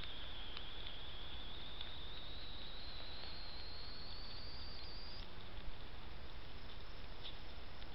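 Trail camera's electronic whine: a thin high-pitched tone that creeps slowly upward and cuts off about five seconds in, over a steady hiss, with a few faint clicks.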